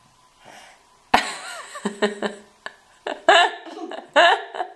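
Laughter in short, repeated bursts, starting about a second in.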